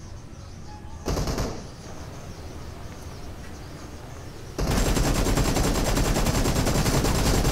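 Boat engine running with a loud, steady rapid rattle that starts suddenly about four and a half seconds in; a brief burst of the same kind of sound comes about a second in.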